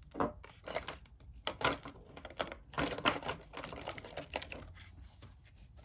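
Small resin and metal miniature pieces being handled and put back into a snap-open plastic case: irregular light clicks and clatter, several a second.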